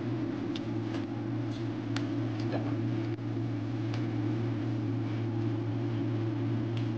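Steady low machine hum, with a few faint, short clicks from fingers mixing rice and food on a plate.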